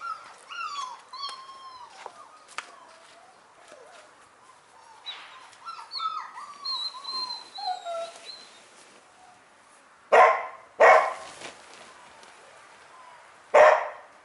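A dog whining in high, bending whimpers that keep falling in pitch, then three loud, sharp barks: two close together about ten seconds in and one more near the end.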